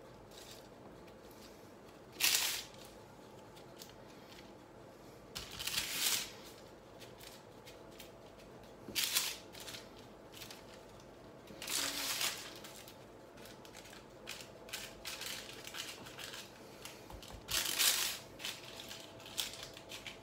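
Baking parchment crinkling in short bursts, six or seven of them a few seconds apart, as hands press and pinch the rim of a double-crust pizza dough lying on it.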